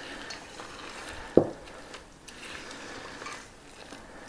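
A utensil stirring a thick, sticky mixture of oats and cocoa in a stainless steel bowl, with soft scraping throughout and one sharp knock against the bowl about a second and a half in.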